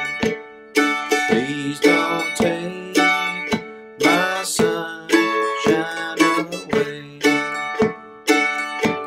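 F-style mandolin strumming chords in an even rhythm, about two strums a second. A man's voice sings the melody over it in the middle stretch.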